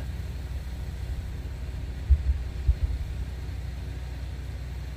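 Excavator's diesel engine running steadily in the background, a low rumble, with a few dull low thumps a little over two seconds in.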